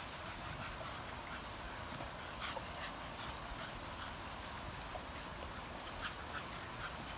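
Staffordshire bull terriers playing at a hanging swing tug toy, making a few brief, faint dog sounds spaced out over a steady outdoor background hiss.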